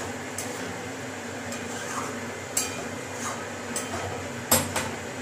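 Spatula scraping and clinking against a metal kadai as paneer and capsicum in masala are stirred over a high flame, with a handful of sharp knocks, the loudest a little past four seconds in.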